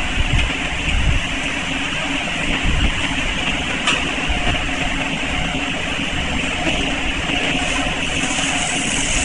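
LTCN LT-500C PCB processing machine running: a steady mechanical noise with low rumble. There is one sharp click about four seconds in, and a high hiss grows near the end.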